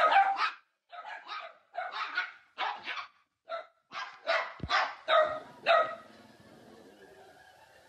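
Puppies barking: a quick run of short, high-pitched barks that stops about six seconds in, with a dull thump partway through.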